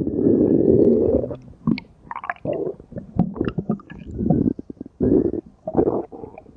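Stomach growling: a long low rumble for about the first second and a half, then a string of short gurgles and squelches.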